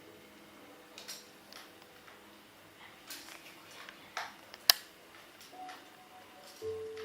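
Scattered light plastic clicks and taps from a battery-powered transforming robot toy car being handled and run, with one sharp click a little past the middle. Faint steady tones run underneath.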